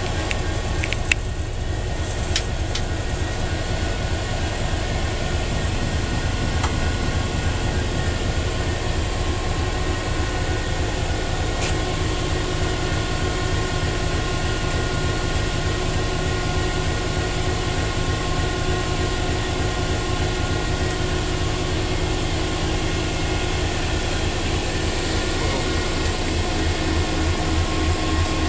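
WDP4 locomotive's 16-cylinder EMD 710 two-stroke diesel running at low idle with the locomotive standing, heard from inside the cab: a steady low rumble and hum, getting somewhat louder near the end. A few light clicks come in the first couple of seconds.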